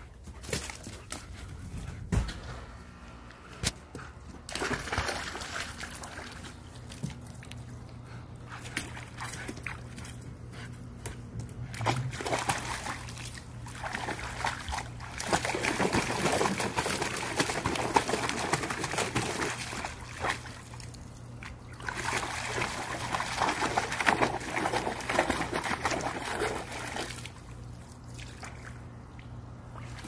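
A husky pawing and stamping in a plastic kiddie pool, the water sloshing and splashing in several bouts, the longest lasting several seconds, with quieter trickling between.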